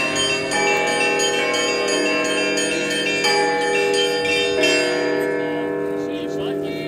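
Orthodox church bells ringing for Easter: quick strokes on the small bells over the long-ringing tones of the larger ones. The quick strokes stop about five seconds in, and the big bells ring on.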